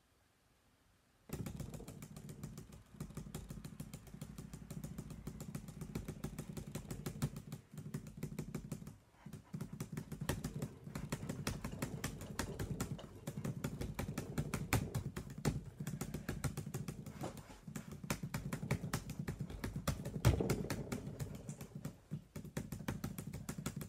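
Rapid, frantic one-finger tapping on a laptop keyboard: many keystrokes a second, starting suddenly about a second in, with a few brief pauses.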